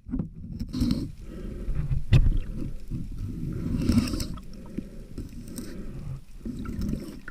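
Muffled underwater sound of a sailboat's hull being scrubbed and scraped clean of marine growth: an irregular, low scraping rumble with one sharp knock about two seconds in.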